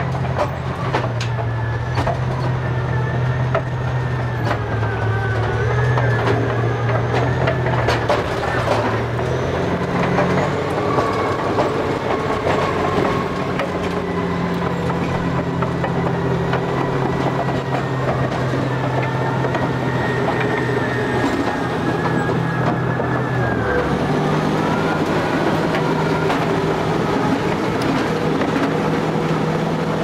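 Caterpillar D8R crawler bulldozer working in snow: its diesel engine running steadily under load, the engine note stepping up and down a couple of times, with the clanking and squeaking of its steel tracks over it.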